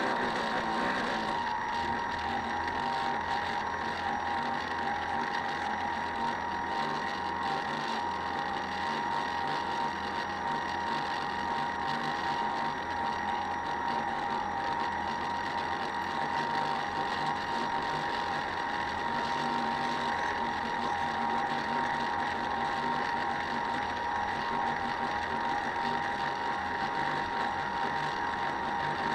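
Small motor of a model boat running steadily, a constant whine with no change in speed.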